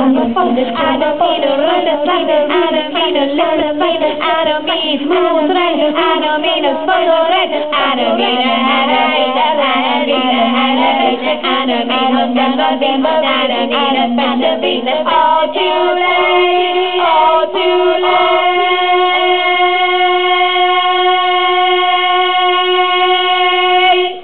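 Female vocal ensemble singing a medieval-style song live through a PA, several voices moving in harmony, then from about sixteen seconds in holding one long steady note. The sound is harsh and poorly mixed, picked up right in front of the PA speaker.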